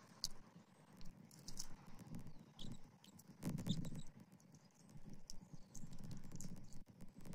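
Scattered clicks, taps and rustling of sticks in a bald eagle nest as the adult female works at a large fish, with a cluster of taps about halfway through. A low, uneven rumble of wind on the microphone and a few faint high chirps run underneath.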